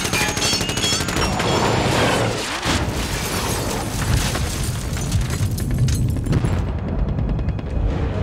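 Action-film gunfight: rapid gunfire and heavy booms of explosions and impacts, one on another with no break.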